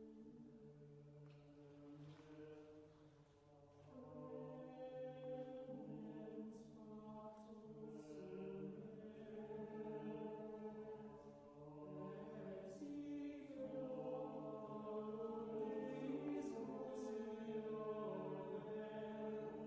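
Background music: a choir singing slow, long-held notes, growing louder about four seconds in.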